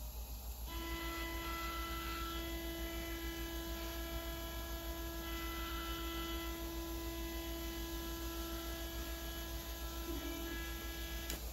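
CNC plasma table's Z-axis stepper motor whining at one steady pitch as it slowly lowers the torch for a probe touch-off. The whine starts about a second in and stops just before the end, when the torch touches down. A low electrical hum runs underneath throughout.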